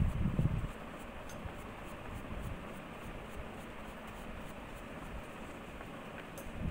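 Faint scratching of a paintbrush on paper over steady room noise, with a brief low rumble in the first second.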